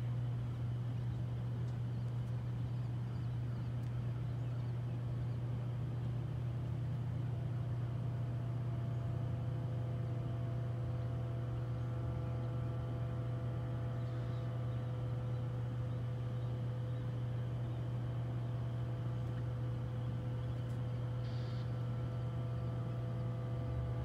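A steady low mechanical hum, with several faint, steady higher tones joining about a third of the way in.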